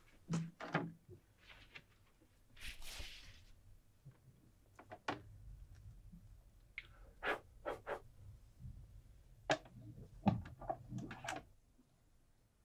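Handling noises from a vinyl record and portable record player: a dozen or so scattered light clicks and knocks, with a short rustle about three seconds in.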